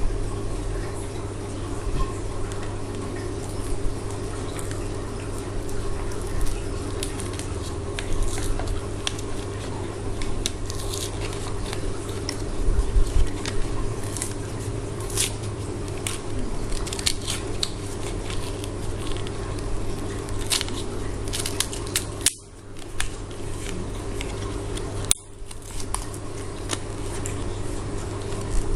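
Scattered clicks and taps of small plastic parts being handled as a new blade is fitted to a Flipper magnetic algae cleaner, over a steady low hum. The sound drops out briefly twice near the end.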